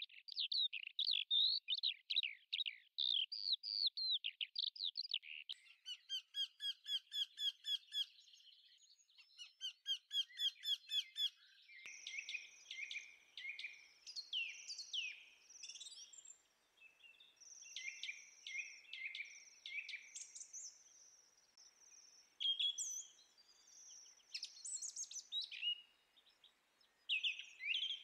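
Birdsong: songbirds chirping and trilling, with runs of quick falling notes, about four a second, in the first few seconds and a mix of varied chirps and whistled calls after that.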